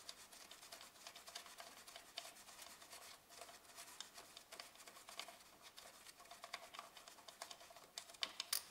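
Faint, irregular clicks and light metallic scraping of a small wrench working a bolt loose on a Toyota Prius hybrid converter, with a few sharper clicks near the end.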